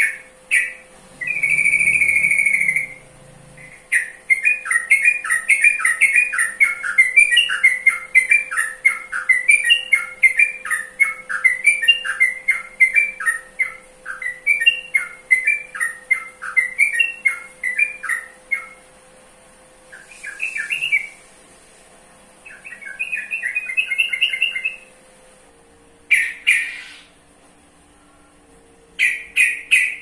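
Caged sooty-headed bulbul (trucukan) singing: a long held note near the start, then a long fast run of short rising and falling notes, then a few shorter bursts of song with pauses between them.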